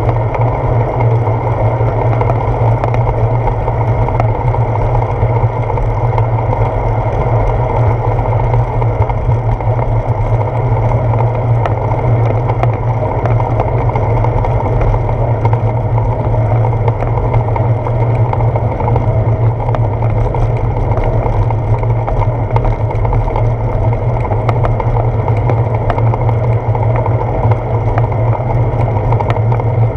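Steady low rumble of wind and road noise picked up by a GoPro Hero 4 mounted on the handlebar of a moving bicycle, with a few faint ticks from bumps in the path.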